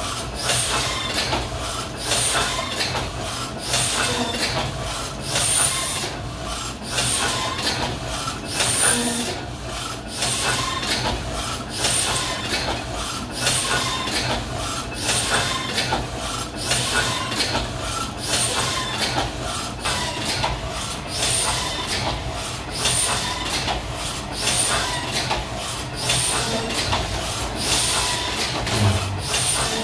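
A 1972 Heidelberg Windmill platen press running a hot foil stamping job, its mechanism cycling with a regular, rhythmic clatter.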